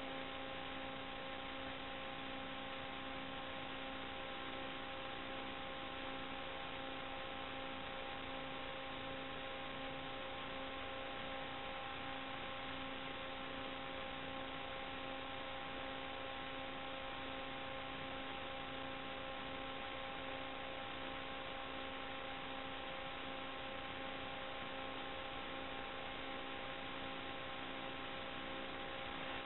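Steady hiss with a constant hum of several fixed tones, unchanging throughout: electrical noise on the audio channel of an analog FPV video receiver, as recorded by the DVR.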